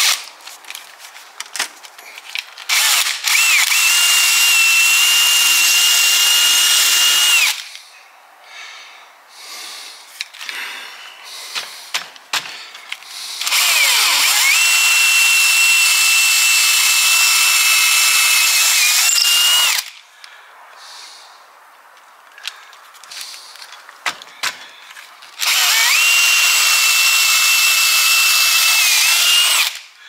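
DeWalt XRP cordless drill with a twist bit drilling holes into a motorhome's side panel, run three times for about five seconds each. Each run whines up to speed, holds a steady high whine, and winds down as the trigger is released, with small clicks and handling noises between runs.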